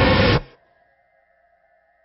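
A loud, dense soundtrack noise with many overlapping tones cuts off abruptly about half a second in. What remains is a faint, steady drone of high held tones from the film's score.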